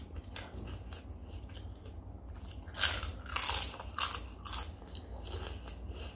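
Crisp fried papad being bitten and chewed close to the microphone: a run of loud crunches about three seconds in, with softer chewing before and after.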